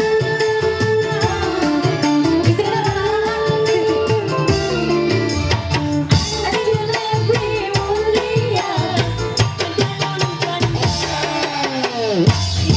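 Live dangdut band music amplified through a PA: a fast hand-drum beat, electronic keyboard and a woman singing. A long falling pitch glide sweeps down near the end.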